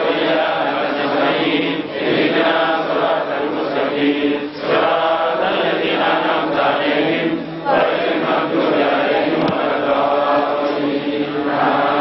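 A large crowd chanting together in unison. The chant comes in repeated phrases a few seconds long, with brief dips between them.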